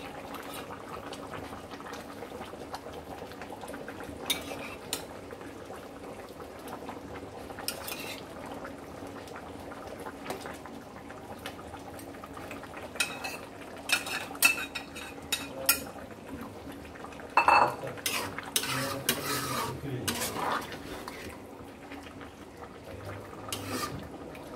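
Spatula knocking and scraping against a plate and a metal karahi as pieces of fried hilsa are lifted off the plate and eased into a simmering curry. Scattered clinks come throughout, with a busier run of strikes and scrapes in the second half.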